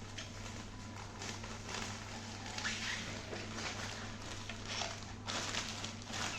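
Parcel packaging being opened and handled, with rustling and crinkling in irregular bursts over a steady low hum.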